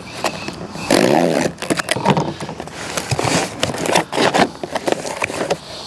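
Small cardboard box being opened by hand: the flaps and packing scrape and crackle, with many short sharp clicks throughout.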